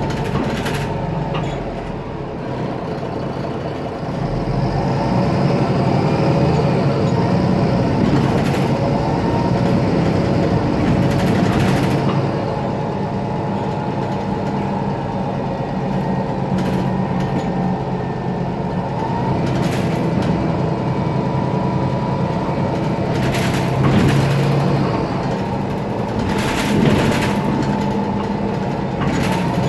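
Mercedes-Benz Citaro O530 city bus running on its OM906LA turbo-diesel, with a steady high turbocharger whine over the engine drone that is the sign of a faulty turbo. Several brief sharp noises break in along the way.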